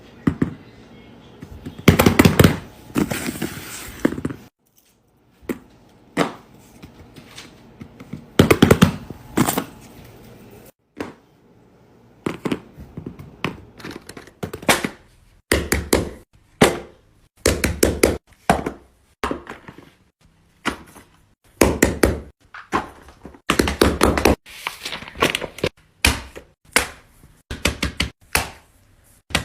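Fidget toys being handled, making a run of taps and thunks. Two longer, denser noisy stretches come in the first ten seconds, then many quick sharp clicks and knocks follow, several a second.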